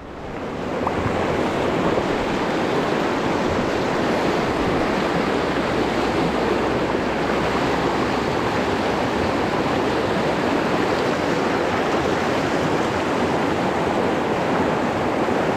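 A fast, high river running over rapids: a steady rush of water that swells over the first second and then holds even.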